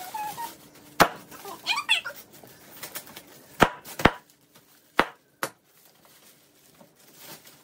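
Sharp knocks and taps from a cardboard toy box being handled and opened, five of them spread over about four seconds, with a child's short high squeal about two seconds in.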